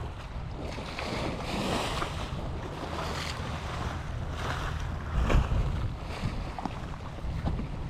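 Wind buffeting the action camera's microphone over choppy water slapping against a seawall, in uneven surges, with one short louder surge about five seconds in.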